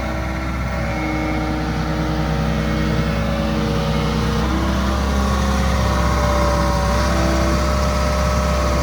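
Hitachi ZX75UR-3 compact excavator running, a steady diesel engine sound with several held tones above it. About halfway through the tones shift pitch and the sound grows slightly louder.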